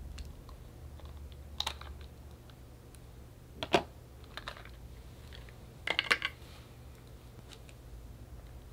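Clicks and taps of hard plastic as a clear plastic AirPods case is handled against an AirPods charging case. There are a few scattered clicks, the sharpest about three and a half seconds in, and a quick run of clicks around six seconds in.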